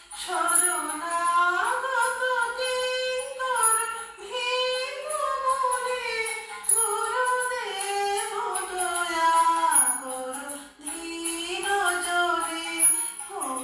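A woman singing a Bengali devotional Guru Vandana hymn in a slow, gliding melody, holding long notes, over a faint steady low tone.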